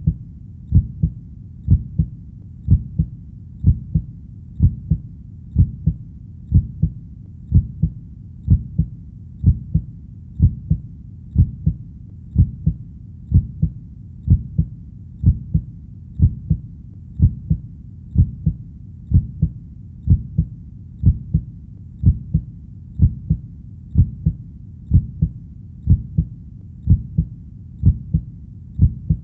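Heartbeat sound: a steady, even rhythm of low double thumps (lub-dub), about one beat a second.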